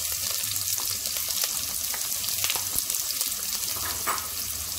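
Freshly added chopped onions sizzling in hot oil in a frying pan, stirred with a wooden spatula, with a few short scrapes.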